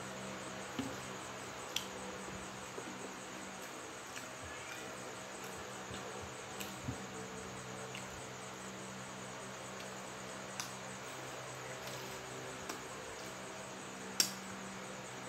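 Quiet eating by hand: scattered soft smacks and clicks of chewing and fingers working fried chicken, with a sharper lip smack near the end as fingers are sucked clean, over a steady low hum.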